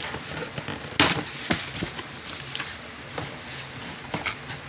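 Cardboard shipping box being pulled open by hand: a sharp tear about a second in, then crinkling and rustling of the cardboard flaps with scattered small clicks.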